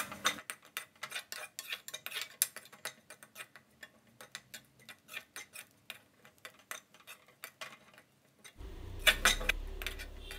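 Spoon scraping and clinking against an aluminium kadai in quick, irregular strokes, stirring grated coconut as it dry-roasts. Near the end a low steady hum comes in under a few last scrapes.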